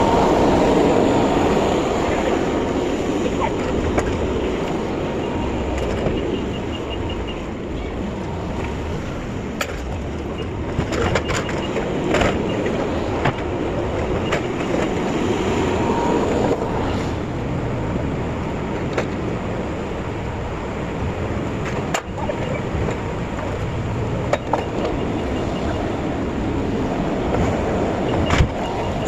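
Dodge truck driving, with steady engine and road noise and a few sharp rattles and clanks.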